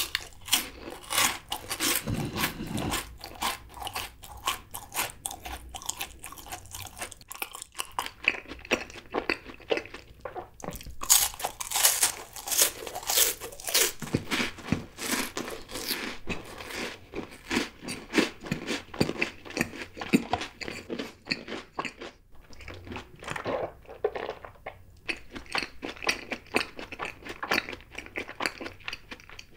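Close-miked biting and crunchy chewing of a chocolate-coated bar: a bite near the start, then a long run of crisp crunching chews with a few short pauses.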